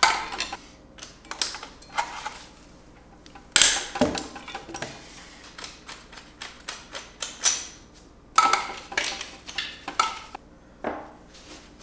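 Ratchet wrench clicking in short runs, with small metal clinks, as the bolts holding the transmission to the engine are undone.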